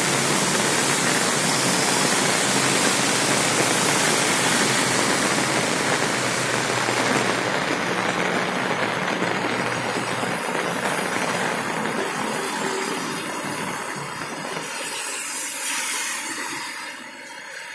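Heavy rain hissing down on a wet paved street, with car tyres swishing through standing water. The hiss thins after several seconds. A car passes with a swell of noise about sixteen seconds in, and then the sound fades.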